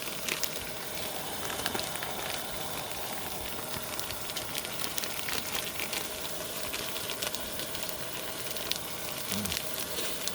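Pork and kimchi sizzling in sesame oil in a pot: a steady frying crackle with scattered small pops.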